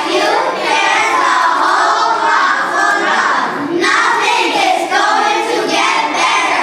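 A group of children's voices shouting and singing together, loud and continuous, with a brief dip about four seconds in.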